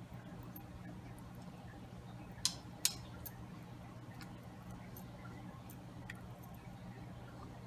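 Light clicks and taps of pieces of raw bell pepper being set into a pan of raw vegetables by hand, with two sharper clicks close together about two and a half seconds in. A steady low hum runs underneath.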